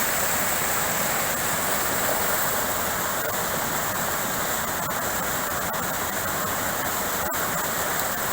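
Steady hiss of rushing water falling at a waterfall.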